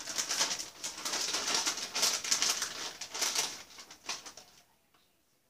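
Plastic bag of shredded cheese crinkling and rustling as it is handled and shaken out over a pan, stopping about four and a half seconds in.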